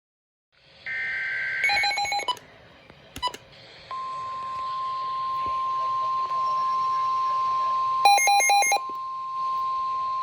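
NOAA Weather Radio alert sequence: a brief screech of SAME header data about a second in, then a steady single-pitch 1050 Hz warning alarm tone from about four seconds in. Over it come two short runs of rapid electronic beeps, near two seconds and near eight seconds.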